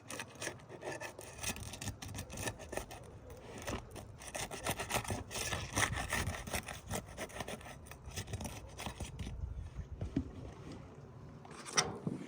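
Flat steel shingle bar scraping and prying under roof shingles, a continuous rough rubbing and scraping made of many short irregular strokes that stops just before the end.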